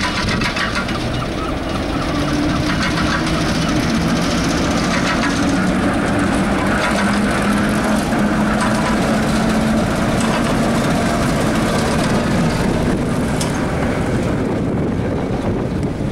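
British Rail Class 08 diesel shunter running slowly past, its English Electric six-cylinder diesel engine giving a steady low drone. The sound eases off a little near the end as the locomotive moves away.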